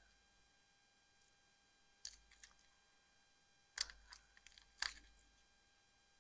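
A few faint, sharp clicks and light knocks of hands handling things on a kitchen worktop, coming in three short clusters about two, four and five seconds in.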